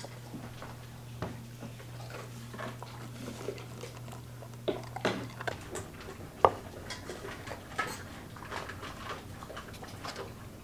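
A golden retriever crunching dry kibble from a stainless steel bowl over a low steady hum, which stops about halfway through. Then come light clicks and knocks of a plastic shaker cup being handled and set down on a countertop, with one sharp knock a little past the middle.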